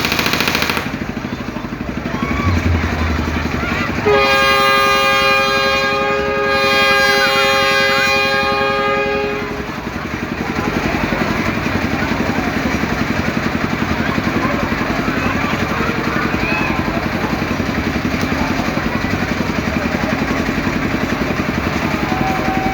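Kora-kora ride's telolet horn sounding for about five and a half seconds, starting about four seconds in, with a short dip in the middle. Underneath it is steady mechanical engine noise.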